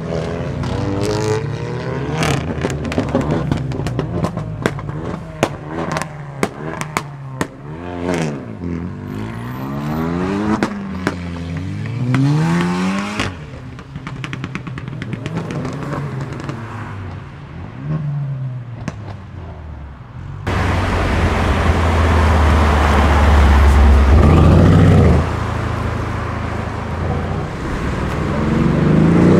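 Tuned sports cars accelerating away one after another. A Volkswagen Golf hot hatch revs up and down through gear changes with rapid exhaust pops and crackles for the first dozen seconds. A loud, deep engine rumble starts abruptly about twenty seconds in, and near the end a Mercedes-AMG E63 saloon's V8 revs up as it accelerates.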